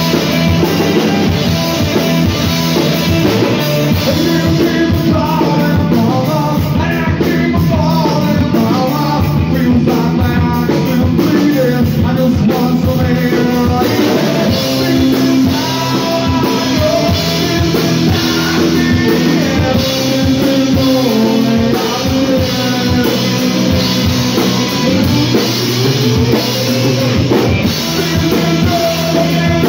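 A rock band playing live: drum kit and bass guitar with a male singer, loud and continuous.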